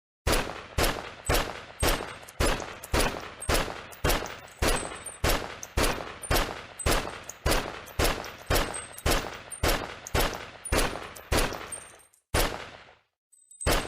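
PPSh-41 submachine gun firing single shots at an even pace of about two a second, each with a short echoing tail. Near the end the pace slows to two last, wider-spaced shots.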